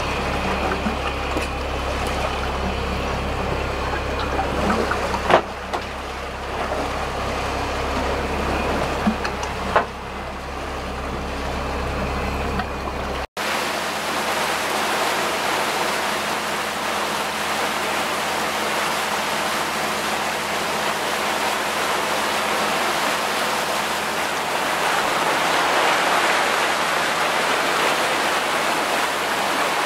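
A boat's diesel engine drones steadily, with two sharp knocks about five and ten seconds in as a paravane stabilizer fish on its chain is handled over the stern. About halfway through, the sound switches to the steady rush of the boat's wake churning astern.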